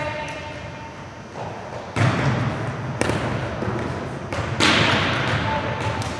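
Volleyballs being struck during a serve-and-pass drill: sharp smacks of hand and forearm on the ball, three main hits about two, three and four and a half seconds in, each echoing in a large gymnasium.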